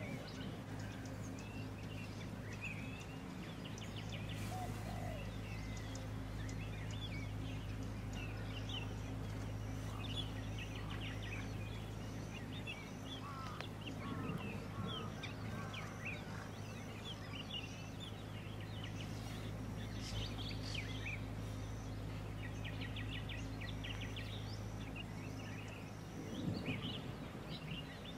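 Background birdsong: many short chirps and call notes from small birds, over a steady low hum. A louder, lower noise breaks in briefly near the end.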